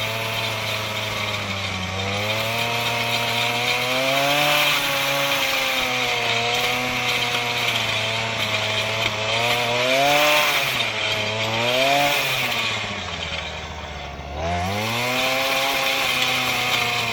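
Earthquake MC33 mini tiller's 33cc two-stroke engine running at high throttle as the tines work the soil, its pitch rising and falling as the load changes. About three-quarters of the way through, it drops to a low idle for about a second, then revs straight back up.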